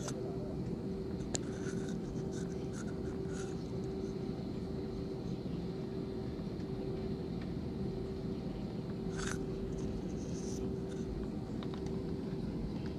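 Airbus A320-family airliner cabin while taxiing: the jet engines at idle give a steady hum with a held tone. A few short scratches and rustles come through close to the microphone.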